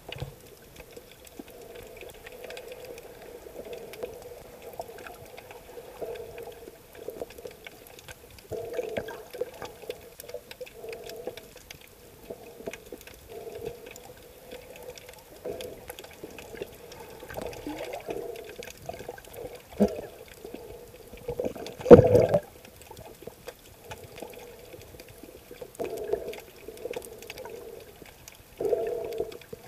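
Muffled underwater water noise picked up by a submerged camera: water moving and bubbling in uneven surges. One louder thump comes about two-thirds of the way through.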